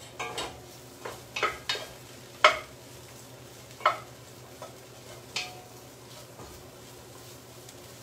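A cooking utensil stirring and scraping the bottom of a pot of mushrooms cooking with flour, over a faint sizzle: the browned bits being scraped up while the flour cooks. About eight sharp, irregular scrapes and knocks come in the first five and a half seconds, the loudest about two and a half seconds in, then the stirring goes quieter.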